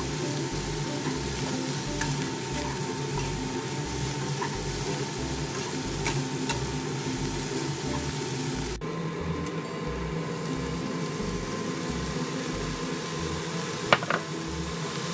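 Fried noodles and shredded vegetables sizzling in a hot non-stick wok while being stirred and tossed with a spatula. Near the end comes a single sharp click.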